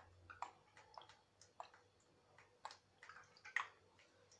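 Faint, scattered small clicks and ticks from an olive oil bottle being handled over a pot of stuffed leaf rolls as the oil is drizzled and the bottle is lifted away.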